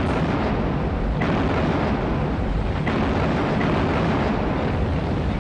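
Battle sound effect of naval gunfire and explosions: a dense, continuous rumbling din that starts suddenly and holds steady, with a few faint sharper cracks inside it.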